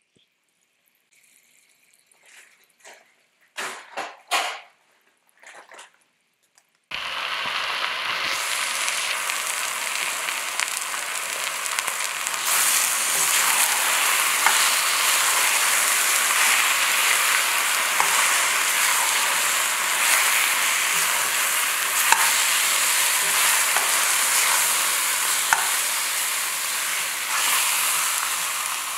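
Chicken legs sizzling loudly as they hit hot, over-browned brown sugar and oil in a stainless steel Dutch oven, starting suddenly about seven seconds in, with a spoon stirring and clicking against the pot. The sugar has caramelised too far because the pot was on high heat.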